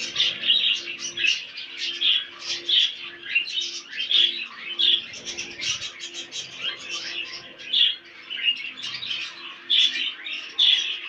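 Budgerigars chirping and chattering continuously, a dense stream of short, quick chirps.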